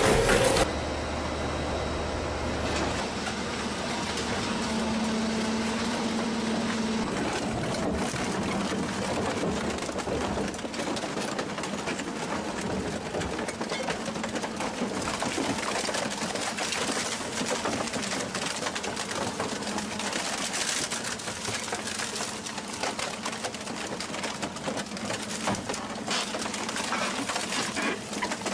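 Industrial shaft shredder tearing apart a car body: continuous crunching and crackling of metal over the steady hum of the machine. It opens with about a second of a louder, deeper machine sound that changes abruptly.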